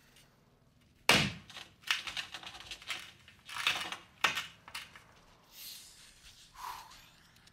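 Hard crystals being crushed and scraped on a glass tabletop: a sharp knock about a second in, then a run of short crunching scrapes.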